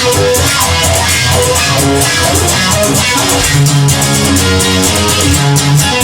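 Instrumental rock music: guitars over bass guitar and drums, with no singing.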